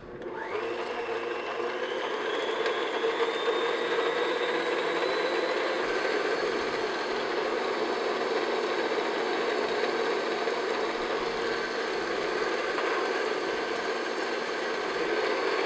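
Electric stand mixer switched on and running with its paddle beater, creaming eggs into butter and sugar for a cake batter. The motor whine rises in pitch over the first few seconds as it comes up to speed, then holds steady.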